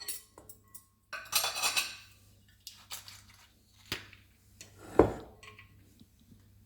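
Kitchen dishes and utensils clinking and knocking against each other in short, separate strikes, with a ringing clatter about a second and a half in and a louder knock about five seconds in.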